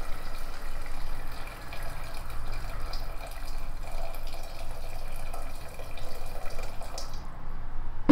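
Water poured from an electric kettle into a steel cooking pot of vegetables: a steady splashing stream that stops about seven seconds in.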